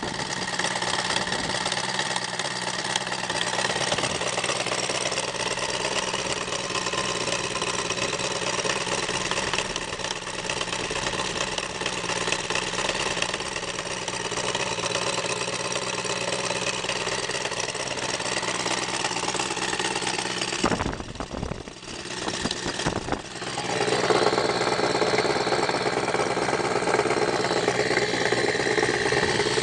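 SEIDEL SE-170cc seven-cylinder spark-ignition model radial engine running steadily on a break-in test bench, swinging a large propeller. The sound dips briefly a little over twenty seconds in, then comes back louder.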